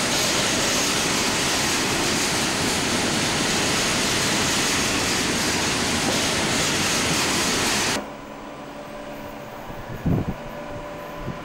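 EWS bogie coal hopper wagons rolling past at speed: a loud, steady rush of wheels on rail. It cuts off suddenly about eight seconds in, giving way to a much quieter, faint steady hum, with one sharp thump near the end.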